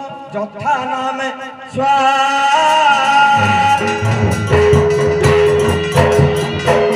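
Odia folk music: a voice sings a wavering melody for the first few seconds. About three and a half seconds in, a barrel drum comes in with a steady beat, and a high note is held over it with short breaks.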